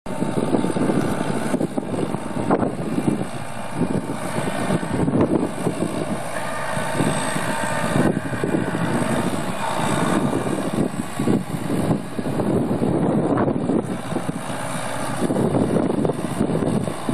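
1997 John Deere 6400 tractor's four-cylinder diesel engine running steadily as the tractor drives.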